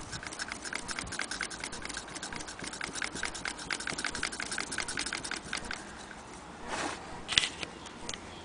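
Antique Willcox & Gibbs chain-stitch sewing machine turned by its handwheel, its mechanism ticking rapidly and evenly, several ticks a second. The ticking stops about six seconds in, followed by a scrape and a few sharp clicks near the end.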